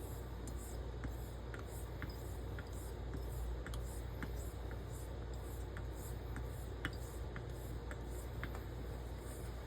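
Carbon steel straight razor being honed on a wet, very fine Belgian coticule with light pressure: even strokes scraping softly across the stone, about two or three a second, with a light tick now and then as the blade turns.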